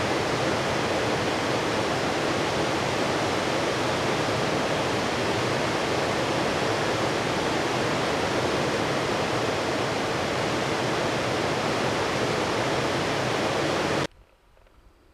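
Steady rush of river water, an even noise with no distinct events, that cuts off abruptly near the end.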